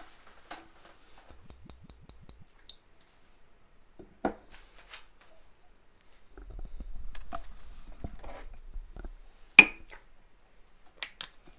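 A dish clinking and knocking: a few scattered sharp clinks, the loudest about ten seconds in and another near four seconds, with a low rumble of handling for a few seconds before the loudest clink.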